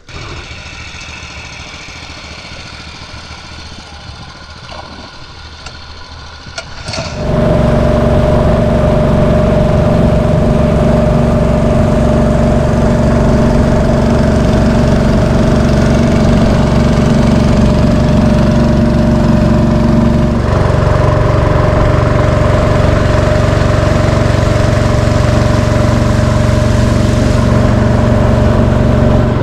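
Fishing boat's engine running steadily: quieter for the first seven seconds or so, then suddenly much louder, with a slight change in its note about twenty seconds in.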